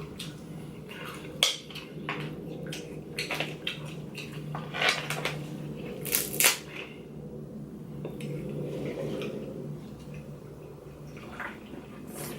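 Eating from a seafood boil: scattered sharp clicks, cracks and clinks of shells and utensils against a dish, over a steady low hum.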